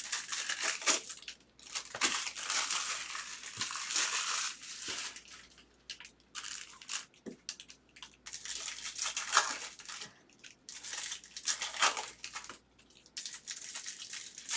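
Crinkly plastic trading-card packaging being handled and torn, in bursts with short pauses.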